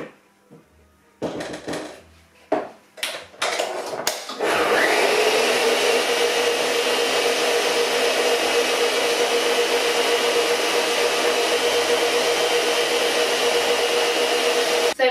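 Electric stand mixer creaming butter. First come a few knocks and scrapes as the bowl is scraped down and the mixer head is lowered. About four seconds in the motor starts, rises briefly in pitch and then runs with a steady hum, stopping just before the end.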